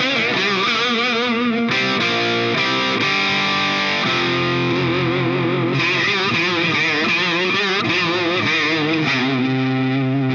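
Relish Phantom Jane electric guitar played through the GTC REVPAD's Touch Vibe preset: distorted, compressed chords with delay and a vibe effect that makes the notes waver in pitch. The wavering comes and goes, strong for a while, then nearly still, then strong again, as the touchpad brings the vibe in and out.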